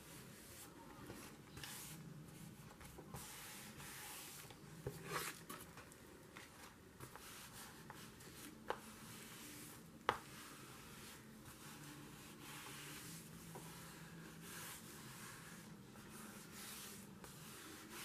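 Faint brushing and rubbing of hands smoothing flannel fabric down onto a freshly glued book cover, stroke after stroke, with two short sharp clicks about nine and ten seconds in.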